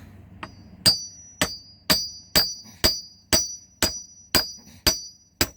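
Hammer blows on metal while forcing open a locked steel safe: about ten steady strikes, roughly two a second, each with a short, high metallic ring.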